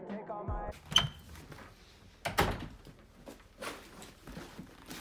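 Household handling sounds: a sharp, ringing click about a second in, then a few short knocks and scrapes, of the kind a door or drawer makes. A song stops just before the click.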